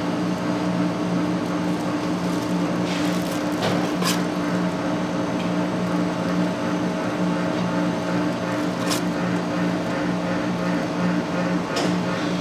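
Steady low machine hum, like a kitchen appliance motor, with a few light clicks of a spoon and utensils on the cutting board.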